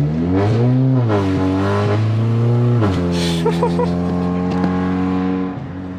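Turbocharged 2.0-litre four-cylinder of a 2015 Audi A3 with a Stage 2 tune, downpipe and Borla exhaust, heard from inside the cabin while accelerating. The pitch climbs, then drops sharply about three seconds in as it shifts up, holds steady, and eases off just before the end.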